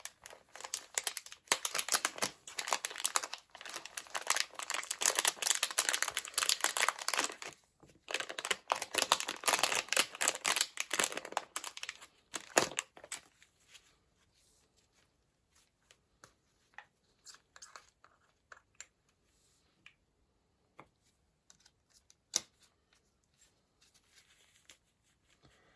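Scratchy rubbing of a sponge applicator buffing gold chrome powder onto a gel-coated nail tip, in quick repeated strokes. After about twelve seconds the rubbing stops, leaving a few scattered light clicks and taps.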